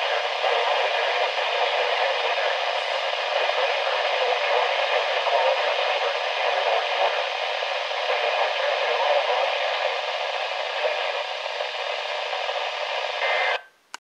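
Midland NOAA weather alert radio's speaker hissing with steady static, no voice audible, cutting off suddenly near the end.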